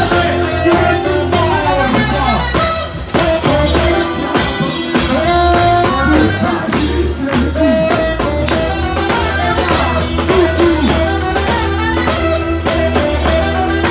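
Live festival band with saxophone playing an upbeat song over a steady drum beat.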